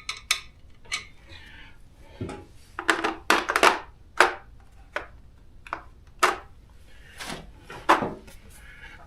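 Metal sockets clinking and clacking as a socket set is searched for a smaller socket: about a dozen sharp, irregular knocks, some ringing briefly.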